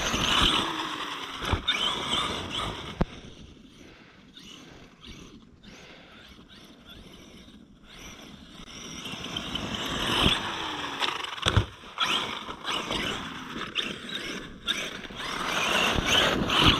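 Arrma Outkast 8S RC truck's brushless motor whining and its tyres churning soft dirt, fading as it goes off for a few seconds and coming back louder in the second half, with a few sharp knocks along the way.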